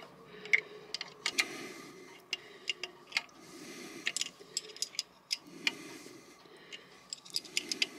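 Ratchet spanner clicking in short runs on its back-strokes as a bolt on a marine diesel's heat exchanger is tightened, with fainter handling noise between the runs.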